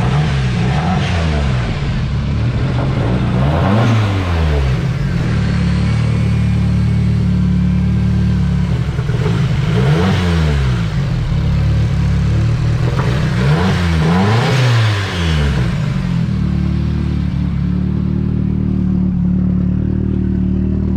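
Turbocharged Nissan KA24DE four-cylinder in an S13 240SX running rough with a misfire, revved and let fall back several times, then settling into a steady idle about 16 seconds in. The owner puts the misfire down to fouled spark plugs in an engine that runs rich, and suspects the injectors may still be a little dirty.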